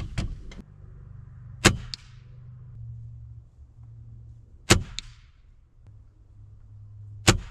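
Three shots from a .22 Gamo Swarm Fusion break-barrel air rifle, about three seconds apart, each a sharp crack followed about a quarter second later by a fainter report.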